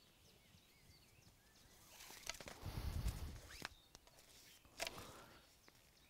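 Quiet outdoor ambience with faint bird chirps. About two seconds in, a second or so of soft rustling and a few clicks as a thin rope is drawn around a man's waist for a second turn of a safety harness.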